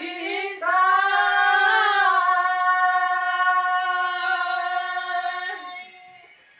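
A singer's voice: a few short sung syllables, then one long held note of about five seconds with a slight waver, which fades out near the end, with little or no accompaniment.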